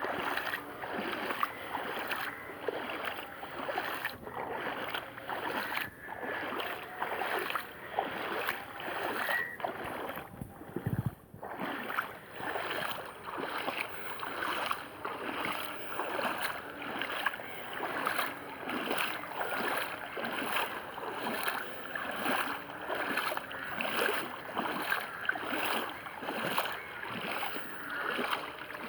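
Legs wading through floodwater: steady, rhythmic sloshing and splashing with each step.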